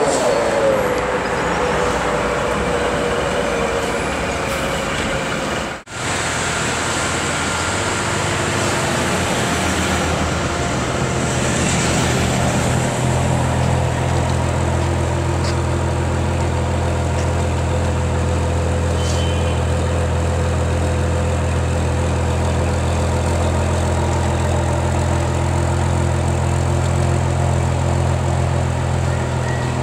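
Ferrari 599 GTO's V12 idling, a steady low drone that settles in about half way through, over city traffic noise. The opening seconds are street traffic, with an engine note falling in pitch at the very start.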